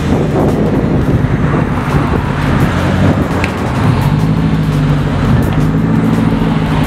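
Straight-piped 2006 Ford GT's supercharged V8 running at idle and light throttle: a loud, deep exhaust drone with small shifts in pitch.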